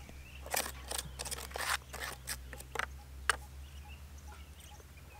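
Short scraping and crunching noises, about six over three and a half seconds, from hands working at a clay cooking stove, then quiet handling sounds.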